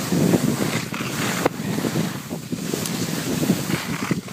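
Wind buffeting the microphone of a skier going downhill, mixed with skis scraping and chattering over snow moguls; one sharp knock about a second and a half in.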